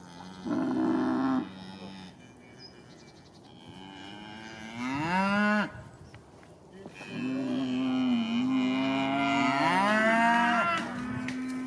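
Galloway cattle mooing: three calls, a short one at the start, a second rising in pitch around the middle, and a long drawn-out moo through most of the second half.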